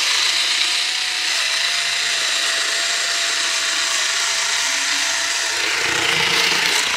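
Blue Ridge rechargeable rotary cutter running with a steady motor whine as its spinning blade cuts through corrugated cardboard. It stops near the end.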